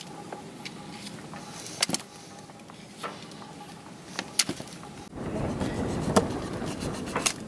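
Ties binding a coil of sail battens being cut with a knife, giving several sharp snaps and clicks as the ties part and the battens shift. A steady rushing noise grows louder about five seconds in.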